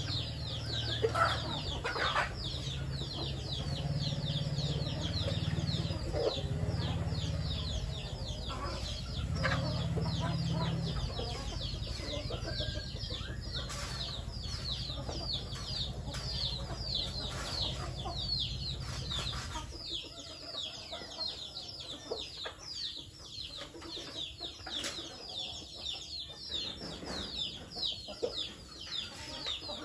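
Chickens feeding in a flock: a constant stream of short, high, falling peeps several a second, with scattered clucks and pecking clicks. A low steady hum underneath stops about twenty seconds in.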